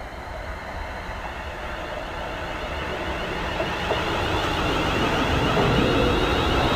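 London Midland Class 350 Desiro electric multiple unit running in alongside the platform. The rumble of its wheels on the rails and its traction equipment grows steadily louder as it draws near and passes close by.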